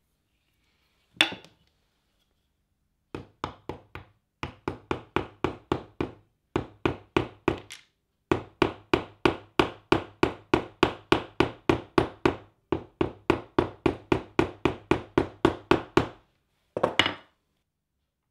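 Soft-faced mallet tapping glued mahogany splints home into slots across the broken neck joint of a guitar, in quick runs of light, even taps about four a second with short pauses between the runs. A single firmer knock comes about a second in and a last double knock near the end.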